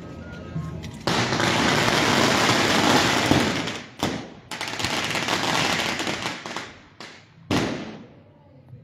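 A string of firecrackers crackling rapidly for a few seconds, a sharp bang, then another run of crackling. Near the end comes a single loud bang with a fading echo.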